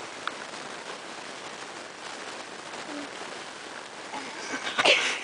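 Steady background hiss, then a short, loud, breathy sniff near the end.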